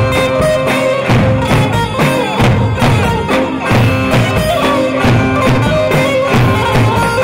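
Live Turkish folk dance music, loud and unbroken: davul bass drums beat a steady dance rhythm under a bağlama (saz) melody with held, droning notes.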